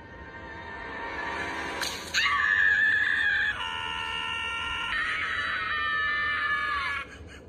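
Animated cartoon characters screaming in long held screams, one after another, loudest just after two seconds in. A tone rising in pitch comes before them, and they cut off shortly before the end.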